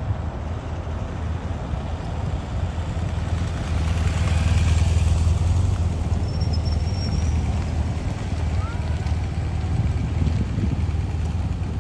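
Slow motorcade driving past close by: engine and tyre noise from a police escort motorcycle and the Bentley State Limousine, a steady low rumble that swells to its loudest about four to six seconds in as the limousine goes by.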